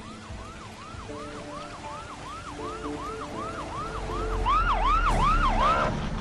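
Ambulance siren in a fast yelping sweep, about three rises and falls a second. It grows much louder about four seconds in as the ambulance arrives, then cuts off just before the end.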